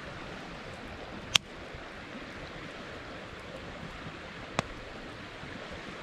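Wood campfire burning with a steady hiss, broken by two sharp crackling pops, one about a second and a half in and another about four and a half seconds in.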